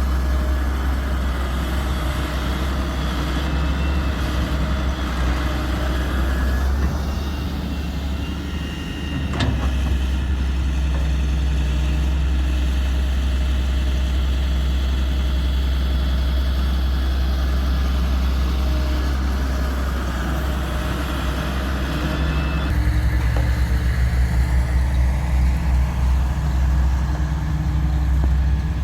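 Heavy diesel engine running steadily, with a single sharp knock about nine seconds in. From about 23 seconds in the engine gets a little louder and throbs.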